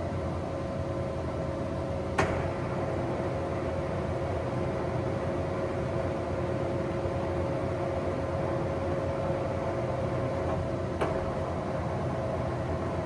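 Large Leopoldo Pontiggia SFE/CC 950 center lathe running steadily, a constant mechanical hum with a held whine and a low rumble. Two short clicks sound over it, about 2 seconds in and near the end.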